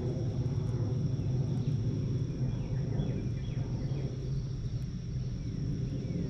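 Outdoor ambience: a steady low rumble, with faint short falling bird chirps about one to four seconds in and a thin steady high whine.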